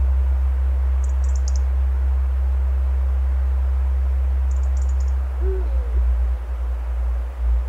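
Live experimental electronic music: a loud, deep bass drone under a steady hiss, with two short clusters of high crackling clicks. About five seconds in, the drone begins to stutter and pulse.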